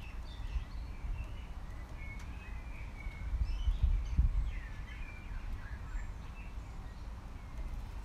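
Small birds chirping and singing in short, quick phrases over a low rumbling noise that swells in gusts, strongest about four seconds in.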